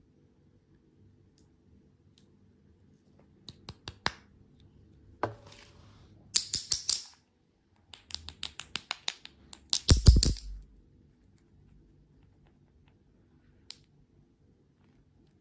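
Candy and its plastic packaging being handled, unwrapped and opened: short bursts of small clicks and crisp crinkling, with a louder burst and a soft thud about ten seconds in.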